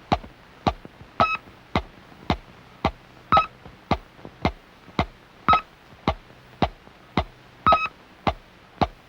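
Electronic sound effect: a steady run of sharp clicks, a little under two a second, with every fourth click carrying a short high beep.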